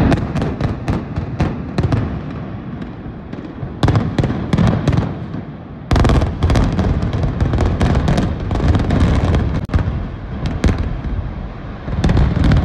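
Building implosion: demolition charges going off in a rapid string of sharp cracks and bangs, with a louder salvo about six seconds in, followed by a heavy low rumble as the arena structure comes down.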